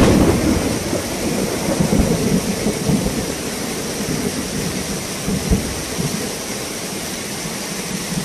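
Heavy rain and a fast floodwater torrent rushing down a street make a steady, dense rushing noise, broken by a few short low thuds.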